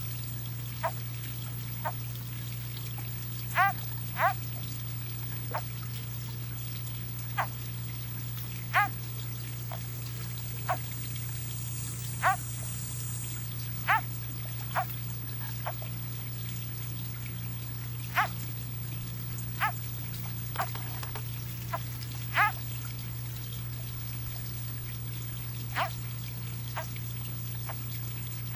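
Water drops plinking one at a time at uneven intervals, roughly one every second or two, each a short blip that rises in pitch, over a steady low hum.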